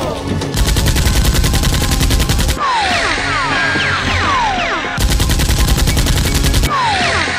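Two bursts of rapid machine-gun fire sound effects, each about two seconds long, the second starting about five seconds in. Between the bursts, a string of short falling whistles.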